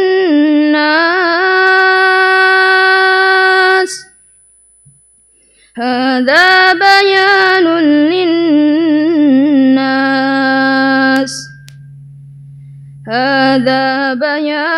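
A male reciter chanting the Quran in melodic tilawah style: a single voice holding long, ornamented notes on drawn-out syllables. It breaks off twice for a breath, about four seconds in and again about eleven seconds in.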